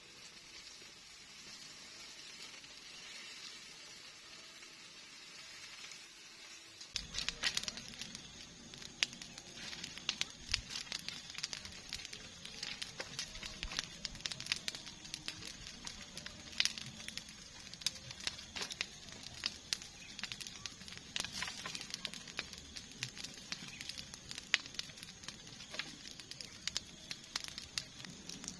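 Crackling and sizzling of cooking: a faint steady hiss that changes about seven seconds in to a louder, dense run of irregular crackles and pops.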